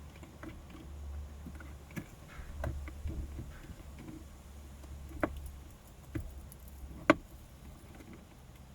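Scattered clicks and knocks of plastic interior parts being handled and refitted in a car, with two sharper snaps, the loudest about seven seconds in, over a low steady rumble.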